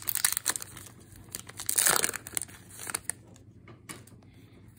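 Foil wrapper of a Pokémon card booster pack crinkling as it is torn open, with a louder tearing rustle about two seconds in, then softer crackles.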